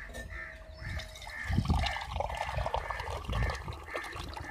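Water pouring from a plastic cooler's tap into a steel tumbler, the stream starting about a second in and running on as the tumbler fills. Behind it, a short chirp repeats about three times a second.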